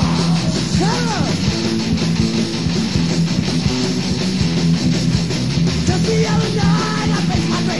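Loud punk rock band recording: electric guitar, bass and drums playing an instrumental stretch without vocals.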